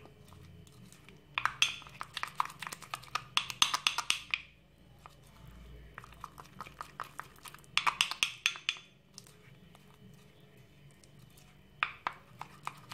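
Plastic spoon stirring a thick, damp paste in a glass bowl, scraping and clicking against the glass in rapid strokes. The stirring comes in three spells: a long one starting just over a second in, a short one near the middle, and another short one near the end.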